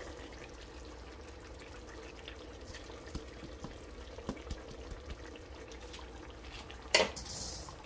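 Chicken curry gravy simmering in a pot: a faint, steady bubbling with small scattered pops. About seven seconds in, a short, louder rustling noise.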